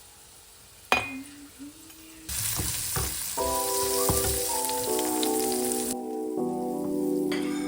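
Food frying with a loud sizzle. It starts about two seconds in and stops sharply about six seconds in, after a single knock about a second in. Background music with steady tones comes in under the sizzle and carries on after it.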